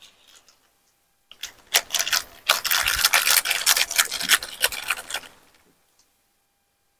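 Kadhai of onion and spice masala frying in hot oil: a dense run of rapid crackles and clicks for about four seconds, stopping abruptly.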